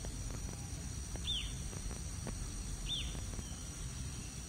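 A bird twice gives a short, high call that slides downward, about a second and a half apart, over a steady high-pitched insect drone and a low rumble of outdoor background noise.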